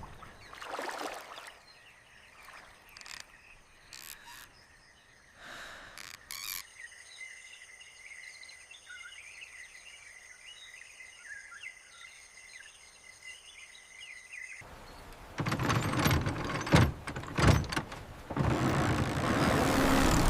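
Birds chirping over steady high tones in natural ambience, with a few scattered knocks. About fifteen seconds in it changes abruptly to loud noise with several sharp knocks, then a swelling rush.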